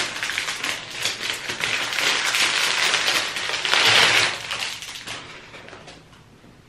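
A thin clear plastic bag crinkling and rustling as a bundle of hair is pulled out of it. The crackling is loudest about four seconds in, then dies away.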